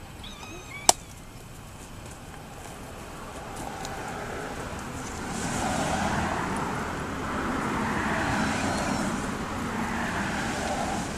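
A car passing on a road: its noise swells from about three seconds in, is loudest in the middle and eases off near the end. A single sharp click about a second in.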